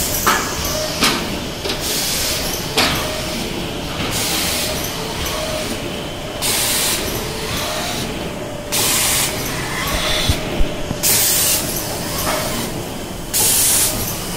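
Automatic hardcover case-making machine running, with short bursts of compressed-air hiss from its pneumatic valves and cylinders about every two seconds, scattered mechanical clicks and a steady tone underneath.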